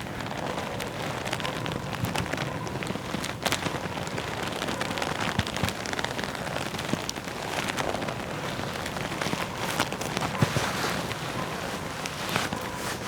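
A leather jacket being rubbed and handled, giving a continuous dense rustling and crackling with a few sharper clicks scattered through it.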